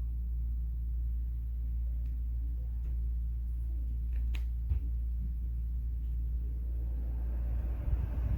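Dreo tower fan running: a steady low rumble of its airflow, which turns into uneven gusty buffeting near the end. A couple of faint clicks come about halfway through.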